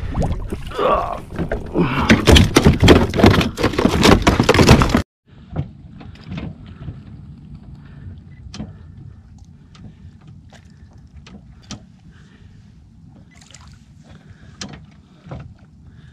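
A hooked mutton snapper splashing and thrashing in the water beside a kayak as it is lifted aboard, a loud run of splashes and knocks. About five seconds in the sound cuts off abruptly, and the rest is quiet water lapping with scattered small knocks.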